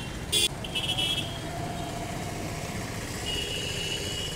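Road traffic with cars and motorcycles running past, and two short horn toots in the first second.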